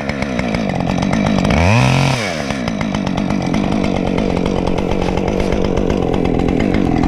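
Chainsaw at full throttle cutting into the trunk of a rotten standing tree during felling. The engine pitch swings up and back down briefly about two seconds in, then holds steady through the cut.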